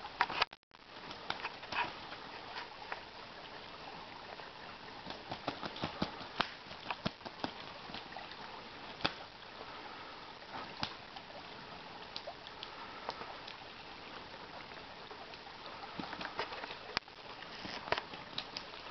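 Two drake mallards fighting in shallow water: irregular sharp splashes and wing-flaps over the steady rush of a creek riffle.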